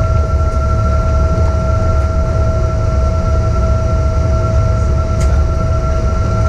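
Steady cabin noise of a Boeing 777 airliner rolling on the ground after landing: a low rumble with a constant whine held at two pitches. A faint tick comes about five seconds in.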